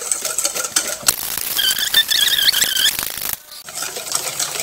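Wire balloon whisk beating a thin egg, sugar and yeast mixture in a stainless steel bowl by hand, rapid clicking and scraping of the wires against the metal while the sugar dissolves. A wavering high squeal sounds for about a second midway, and the whisking pauses briefly near the end.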